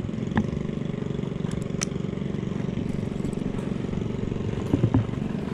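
Small boat engine running steadily at constant speed, with a knock about half a second in and a few louder knocks near the end.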